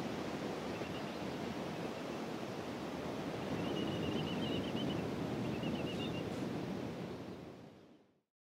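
Steady wash of small sea waves on a sandy beach, with a few faint high chirps in the background. It fades out near the end.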